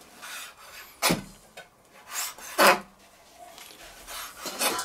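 Kitchen knife slicing raw beef into strips on a bamboo cutting board: about four slicing strokes, the blade striking the wood, the loudest a little past halfway.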